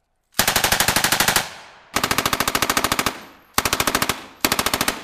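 Belt-fed machine gun firing four rapid bursts of evenly spaced shots, the first two about a second long and the last two about half a second. Each burst trails off in echo.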